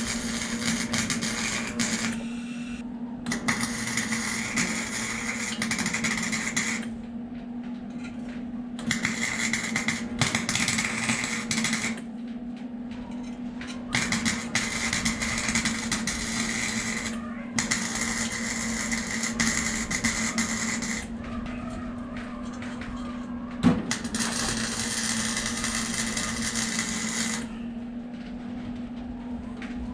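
Welding on a car's exhaust tip: about six runs of arc crackle, each a few seconds long, stop and start with short pauses, over a steady electrical hum. One sharp snap stands out about two-thirds of the way through.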